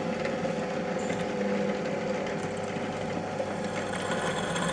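Bench drill press running with a steady hum as its freshly resharpened bit bores into a 5 mm steel flat bar. The bit is throwing proper chips rather than filings, a sign that the sharpening is right.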